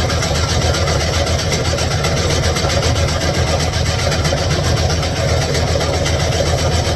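Brunswick A2 pinsetter running steadily after being started up: a loud, even mechanical rumble with a dense, fast rattle. The noise includes a bad pit on this lane.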